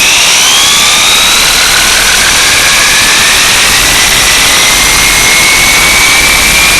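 Electric drive motor of a WLtoys A969-B 4x4 RC truck whining as the truck speeds up, heard from a camera mounted inside the truck, over a loud rushing noise. The whine climbs steeply in pitch in the first second, then keeps rising slowly.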